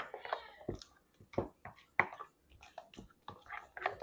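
A utensil clinking and knocking against a mixing bowl in irregular strokes while stirring pancake batter thinned with a little water.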